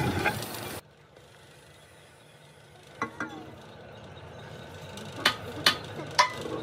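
Sharp metal-on-metal strikes, each with a short ring: two light clinks about three seconds in, then three louder taps in the last couple of seconds. A steady workshop noise cuts off abruptly in the first second.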